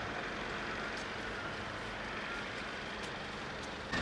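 Steady outdoor engine and traffic noise at a demolition site, with a few faint clicks.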